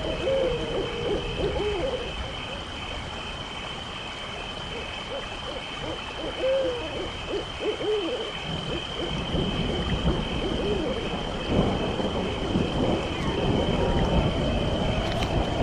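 Owl hooting in short, repeated calls over a steady high chirring of night insects, with a low rumbling wind-like noise building in the second half.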